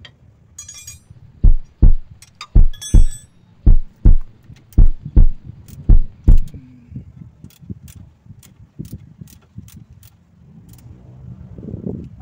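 Metal hand-tool work on the bolts of a steel transmission support: five pairs of heavy, low thumps about a second apart, with metallic clinks, then scattered light ticks and clicks near the end.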